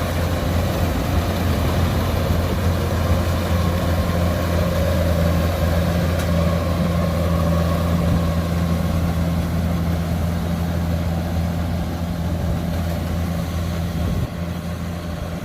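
Kubota DC105X combine harvester's diesel engine running steadily with a deep, even hum while it harvests rice. It drops a little in loudness near the end.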